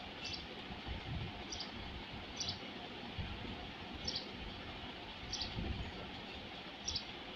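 Soft rustling and pattering of whole spices being brushed off a plate into a pressure cooker, over a faint steady hiss, while a bird chirps in the background with short high chirps about every second.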